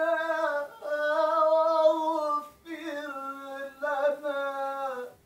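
A man reciting the Quran in a melodic chant, holding long, drawn-out notes that waver in pitch, with a short break for breath about halfway. The voice stops suddenly just before the end.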